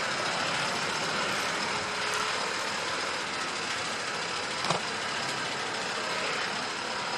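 A vehicle engine running steadily, with one short sharp click about four and a half seconds in.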